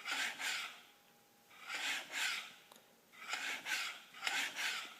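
WP closed-cartridge motocross fork with aftermarket Racetech springs worked through its stroke four times, each stroke giving a metal-on-metal grinding scrape from inside the fork. The owner takes it for the longer, narrower springs binding inside the fork.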